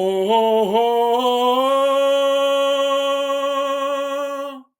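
A man's voice singing one long sustained vowel. It slides up and wavers at the start, then holds a steady note with a slight vibrato until it stops shortly before the end. The note sits in the higher part of his register.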